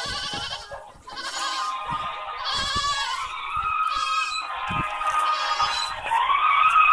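A song playing through a mobile phone's small loudspeaker: a tinny singing voice with wavering, sliding pitch, getting louder near the end.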